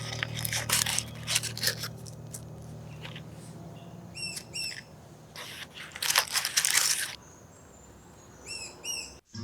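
Outdoor ambience with a few short bird chirps, two quick pairs, over rustling and crunching handling noises; a faint low musical tone fades out partway through.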